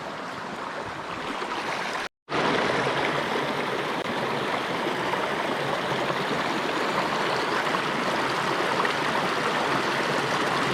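Stream water flowing and splashing, a steady rush with no pauses; about two seconds in it cuts out for a moment and comes back a little louder.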